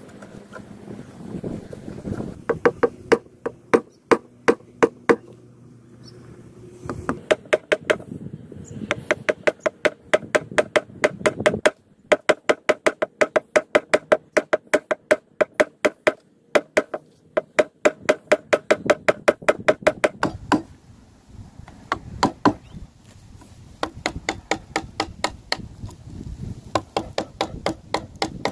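Wood chisel struck repeatedly, chopping into timber: quick runs of sharp blows, about four a second, each run lasting a few seconds with short pauses between.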